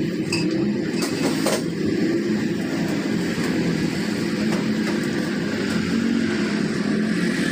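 An engine running steadily, a low hum with a few light clicks about a second in.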